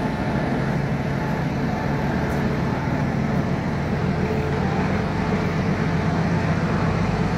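Railway station background noise: a steady low rumble with a faint hum.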